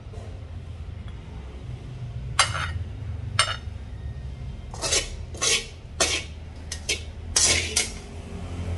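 A metal utensil clinking and scraping against a ceramic plate of stir-fried ginger and pork: two single clinks, then a quick run of about seven more near the end.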